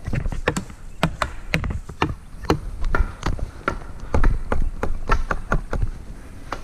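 A rapid, uneven series of sharp knocks and taps, about three a second, over a low rumble.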